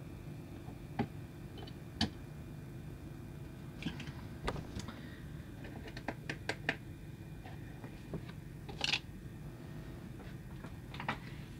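Light clicks and taps of small diecast model cars being set down and shifted on a round display base, a dozen or so scattered through, over a low steady hum.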